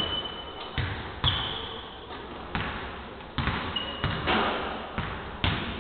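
Basketball bouncing on a hardwood court, about six irregular bounces with a long echo after each, and sneakers squeaking briefly on the floor three times.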